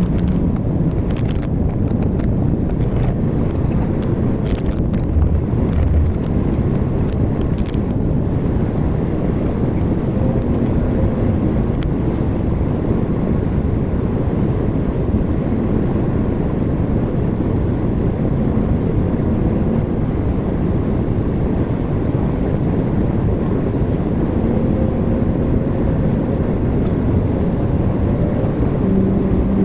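Steady engine and road noise of a vehicle driving on a highway, with a few light clicks or rattles in the first eight seconds or so.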